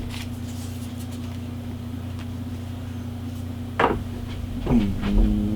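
Steady low hum with light clicks and a sharp knock about four seconds in, as coilover parts and packaging are handled; near the end a falling tone settles into a second, higher hum.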